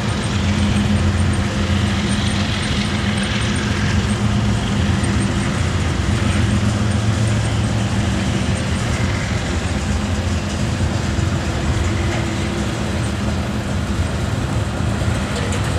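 Freight train well cars rolling past at close range: the steady noise of steel wheels running on the rails, with a low hum underneath.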